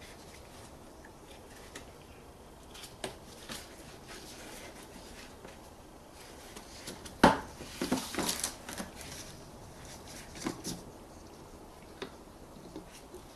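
Light plastic clicks and rattles as a brake fluid reservoir cap is unscrewed and handled. There is a sharp click about seven seconds in, then a short cluster of clicks, with a few single clicks later.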